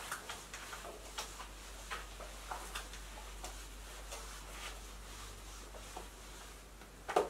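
Handheld whiteboard eraser wiping the board in short strokes: a faint, irregular series of scuffs and ticks, with a louder one near the end.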